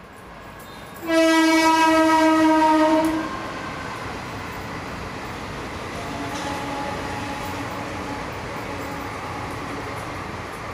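A horn blasts loudly about a second in and holds one steady note for about two seconds. A fainter, lower horn note follows later over a steady rumble.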